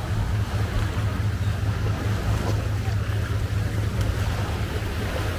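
Steady low hum of idling speedboat outboard engines, over a wash of waves and wind.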